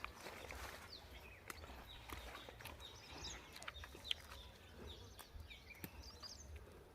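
Faint bird chirps and short calls, with a few scattered light clicks.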